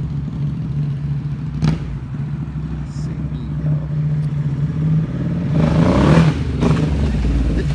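Ducati Hypermotard SP's L-twin engine running through an SC Project CRT slip-on exhaust, idling steadily with a short rise in revs about five and a half seconds in.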